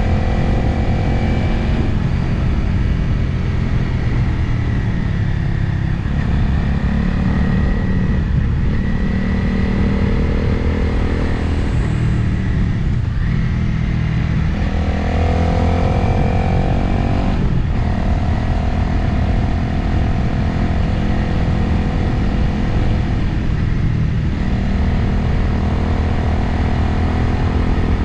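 Motorcycle engine running under way on the road, its pitch rising and falling with the throttle and dropping briefly twice, about halfway and a little later, as the gears change, with wind noise on the camera microphone.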